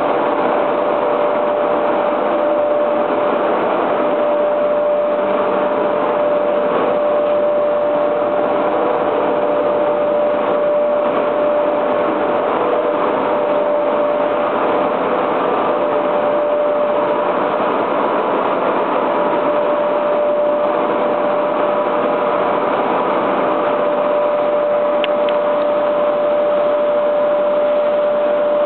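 Steady machinery noise from an EPS block moulding line, an even running sound with a constant high whine throughout.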